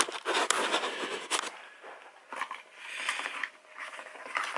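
A utility knife scraping and cutting the plastic insulation off copper electrical wire against a plastic cutting board, in several scratchy bursts with a couple of sharp clicks in the first second or so.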